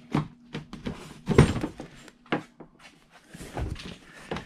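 Honda Pioneer 700 door with a soft fabric upper being worked open by hand: a string of clicks and knocks, the loudest about a second and a half in, then duller thuds near the end.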